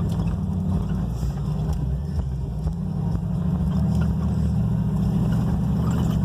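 1999 Ford F-150 pickup's engine and drivetrain running steadily under way, a low drone heard from inside the cab.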